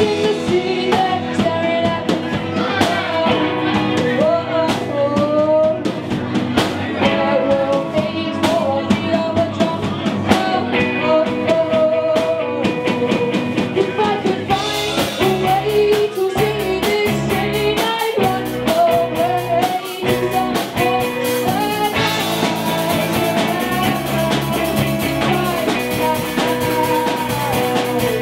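Rock band playing live: drums, guitar and a singing voice. About halfway through, bass and fuller drums come in, and the cymbals get brighter toward the end.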